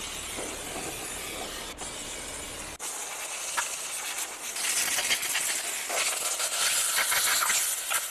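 Hissing, scratchy scrubbing noise from cleaning a car's front wheel hub, breaking off briefly twice in the first three seconds, then louder and harsher from about halfway through.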